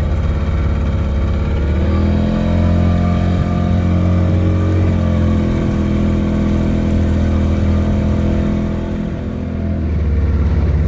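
Small fishing boat's motor under way: it is throttled up about two seconds in, runs steadily, then eases back near the end.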